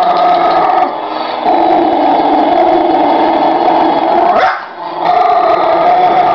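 Two dogs howling together in long, drawn-out notes, with a short break about a second in and one howl sweeping sharply up in pitch past the middle.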